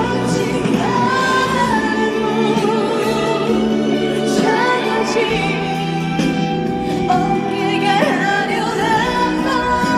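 Slow ballad played live: a female voice sings long, wavering held notes over a backing track of sustained chords and bass.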